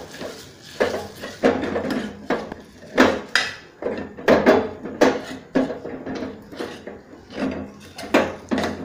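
A steel spoon scraping and clinking against a steel pot as rice paste is stirred and roasted in ghee, in repeated strokes roughly once or twice a second.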